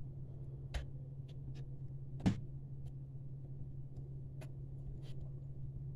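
Scattered soft clicks and taps from hands pressing and squeezing Blue Stuff mould putty into the second half of a two-part mould, the loudest a little over two seconds in, over a steady low hum.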